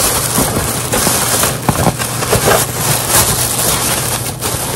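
Plastic packaging being handled, crinkling and crackling continuously with many sharp clicks.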